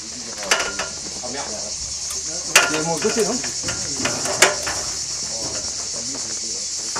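Steady high-pitched chirring of insects, with a few sharp knocks, the loudest about two and a half and four and a half seconds in.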